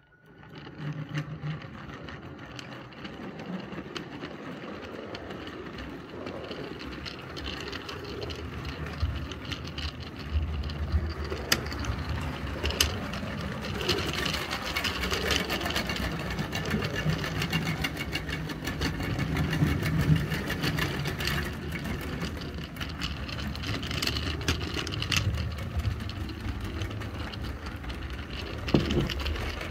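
Roundhouse 0-6-0 battery-electric 16mm-scale model locomotive running steadily with a train of tipper wagons, heard close up from a wagon in the train: a steady motor hum and wheel rumble on the track with scattered sharp clicks. The owner apologises for the loco's noise, which he puts down to its radio-control car speed controller.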